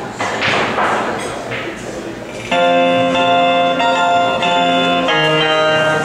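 A couple of seconds of unpitched noise, then about two and a half seconds in, music starts loudly: steady sustained chords that change every half second or so.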